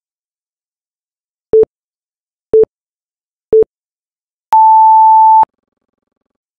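Electronic interval-timer countdown beeps: three short low beeps a second apart, then one long, higher beep lasting about a second. The long beep marks the end of the rest and the start of the work interval.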